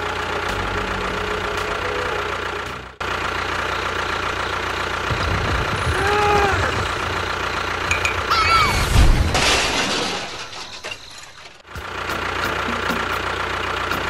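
Tractor engine running steadily, cut off for a moment about three seconds in. Past the middle come a few rising-and-falling tones and a loud crash, followed by a short lull before the engine sound returns.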